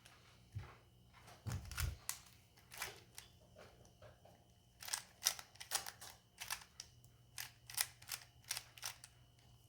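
A 3x3 speed cube being turned by hand, its plastic layers clicking and clacking in irregular quick turns while a cross is being solved.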